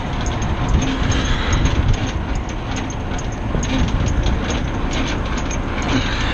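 Semi-trailer landing gear being cranked by hand, the gearbox clicking and rattling steadily with each turn of the crank handle over a constant low rumble.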